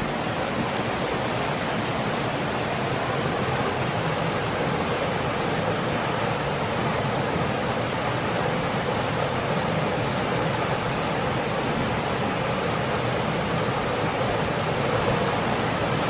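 Mountain stream water rushing, a steady even hiss.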